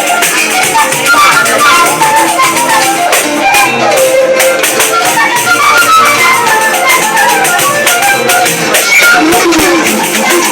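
Live northeastern Brazilian folk music: a pife (cane fife) plays a fast, running melody over shaker and hand percussion.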